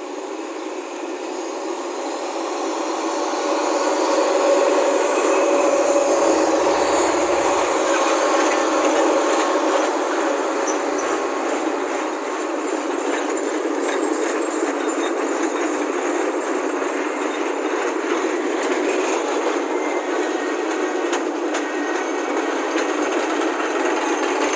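Sugarcane train rolling along the track, its cane wagons rattling and clattering on the rails; it grows louder over the first few seconds, then runs on steadily.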